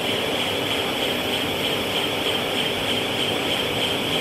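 Five-extruder, seven-layer co-extrusion cast stretch film line running: a steady mechanical din with a strong high hiss, unchanging in level.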